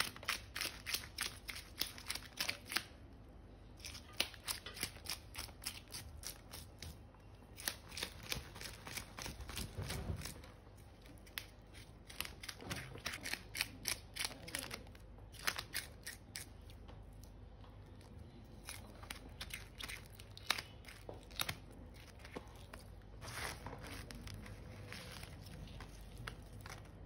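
Scales being scraped off a large mrigal carp with a blade: quick rasping strokes, several a second, in runs broken by short pauses, thinning out near the end.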